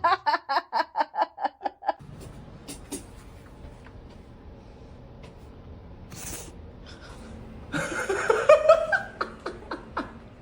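A person laughing in quick, even ha-ha bursts, about four a second, that stop about two seconds in. Near the end comes a short rising vocal sound, followed by a few light clicks.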